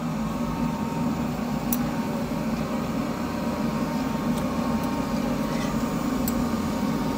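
Steady low hum of a running household appliance, with a few faint light clicks as a glass dropper is worked in a small glass bottle.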